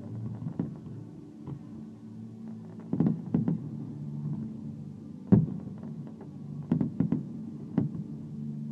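Aerial fireworks bursting: a run of separate bangs at irregular intervals, some in quick pairs, the loudest about five seconds in, over steady low tones.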